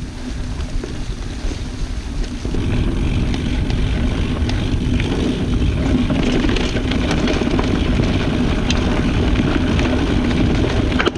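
Wind rushing over the camera microphone and mountain bike tyres rolling on a dirt trail on a descent, growing louder about two and a half seconds in.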